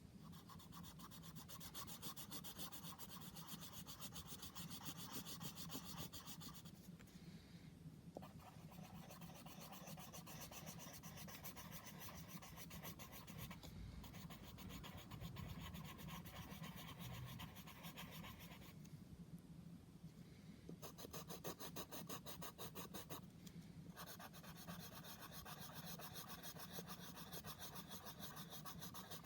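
Colouring on paper: a drawing tool rubbed rapidly back and forth, in long runs of quick, even strokes broken by a few short pauses.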